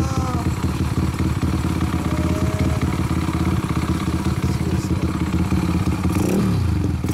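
Custom Honda DAX70 with a 108cc single-cylinder four-stroke engine running through an OVER Racing silencer, a steady, deep exhaust note. Its pitch rises and falls briefly near the end.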